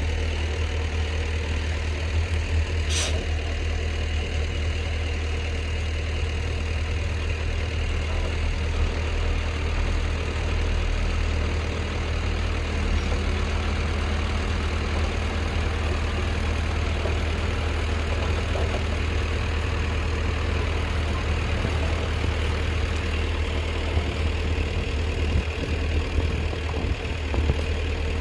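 Diesel engine of heavy earthmoving equipment running steadily at a low rumble, with one sharp click about three seconds in.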